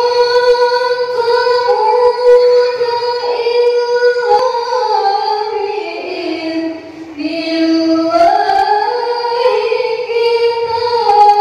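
A single high voice chanting in long, held melismatic notes that glide slowly up and down between pitches, in the style of Islamic devotional recitation.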